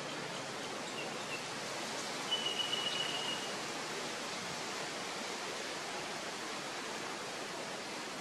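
Steady outdoor background hiss. About two seconds in, a thin high pulsing tone sounds for about a second.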